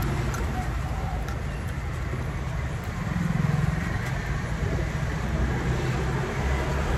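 Steady low rumble of road traffic, with a vehicle engine briefly a little louder about three seconds in.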